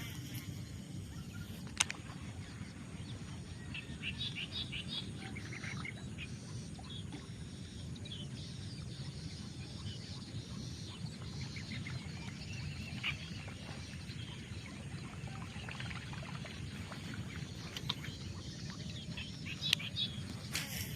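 Outdoor rural ambience: a steady low rumble with scattered short bird chirps, and a couple of sharp clicks, one about two seconds in and one near the end.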